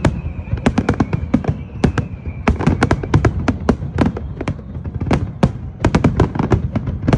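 Fireworks display going off in a dense barrage: sharp bangs and crackles several times a second over a low rumble of booms.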